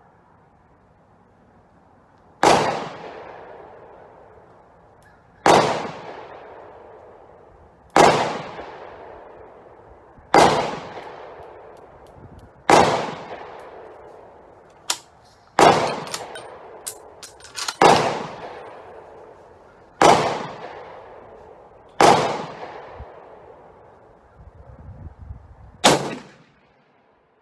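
Rifle shots under a covered shooting shelter: ten sharp reports about two to three seconds apart, each trailing off in a long echo. A few light clicks fall between shots around the middle.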